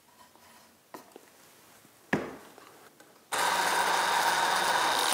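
A wooden knock about two seconds in, then a cordless drill/driver runs steadily for almost two seconds, driving a screw through a painted trim rail into the stile. It stops abruptly.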